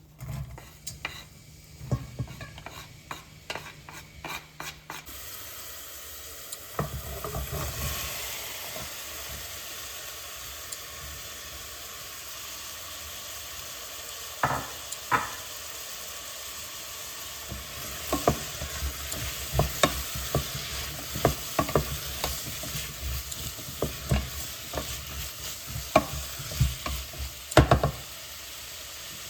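Food sizzling in a frying pan while a utensil stirs it, knocking and scraping against the pan. The steady sizzle comes in about five seconds in; before that there are only scattered clicks and knocks.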